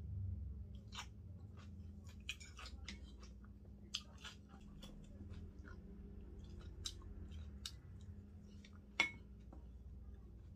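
Close-miked chewing and mouth sounds of a person eating, with light clicks of wooden chopsticks and spoon against a glass bowl of pumpkin porridge; one sharper click comes about nine seconds in. A low steady hum runs underneath.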